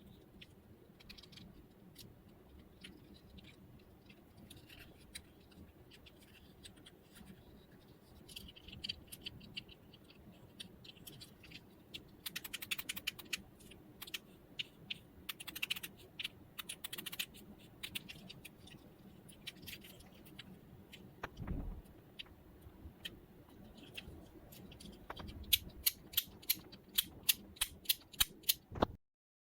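Small plastic fidget cube being worked by hand: scattered clicks and ticks from its buttons, switch and moving parts, with a few bursts of rapid clicking. Near the end comes a run of about a dozen sharp clicks, roughly three a second, then the sound cuts off.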